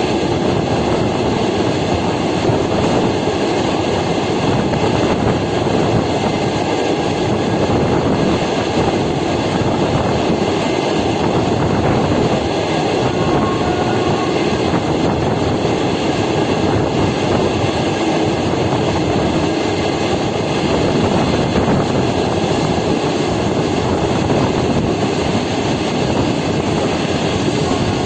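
A moving train, with the steady noise of its wheels running on the rails.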